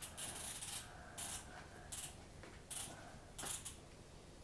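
The rotary closure dial on an orthosis shoe is being twisted tight. It makes five short bursts about three-quarters of a second apart, one turn of the dial each.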